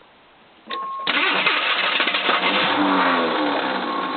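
AMC Eagle's starter motor cranking on a hard start, making a loud whirring with a whine that slides down in pitch, typical of a starter spinning without properly engaging the engine. It starts about a second in, just after a short steady tone.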